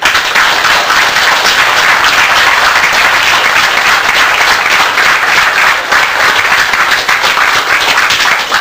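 Audience applauding: dense clapping that breaks out suddenly and holds steady.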